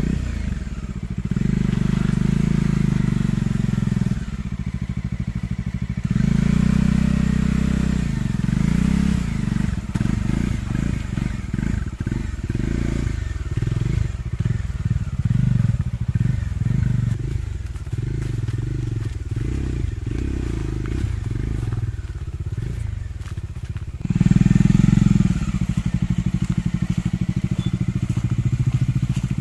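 Bajaj Dominar 400's single-cylinder engine pulling at low speed over a slippery mud-and-grass track. The throttle is opened and eased off again and again, with stronger pulls about a second in, around six seconds in, and the loudest one near the end.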